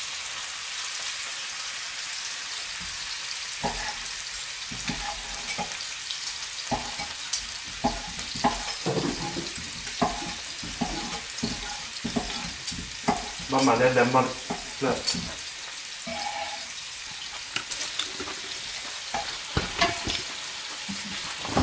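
Steak sizzling steadily in a hot frying pan, with irregular knocks of a knife cutting meat on a wooden cutting board. One brief louder sound about two-thirds of the way through.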